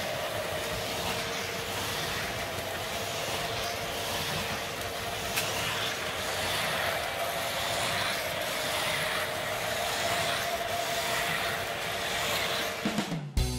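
Lionel O scale model freight train running steadily on its track: an even rolling rumble with a steady hum. Music with drums starts near the end.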